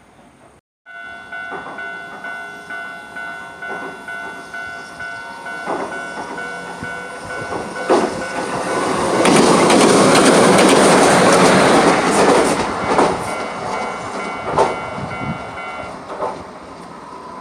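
Level crossing warning bell ringing in a steady, quick repeating beat while a Hiroden train rolls over the crossing. The train's wheels clatter over the rail joints, loudest in the middle, and the bell stops near the end.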